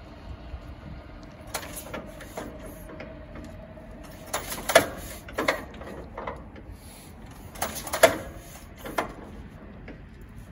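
1913 Leyland S3 bus engine being turned over with the hand starting handle: about five separate swings a second or more apart, each a short mechanical clatter, and the engine not yet running.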